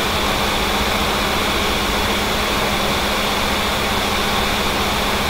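A steady mechanical drone with hiss and a constant low hum, unchanging throughout.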